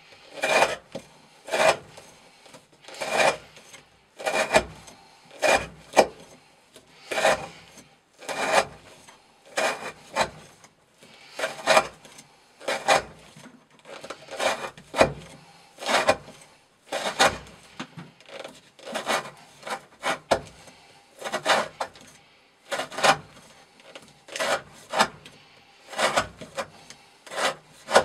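Chris Reeve Sebenza 21 knife blade whittling curled shavings off a wooden stick, one scraping cut after another at about one stroke a second.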